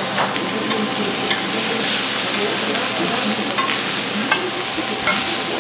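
Kakioko, oyster okonomiyaki, sizzling steadily on a hot iron griddle, with a few short clicks.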